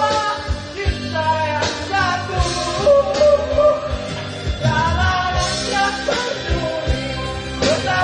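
A song with a singer's voice over a band with guitar and a steady beat.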